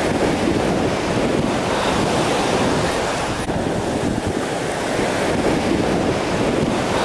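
Sea surf washing onto a sandy beach in a steady rush, with wind buffeting the microphone.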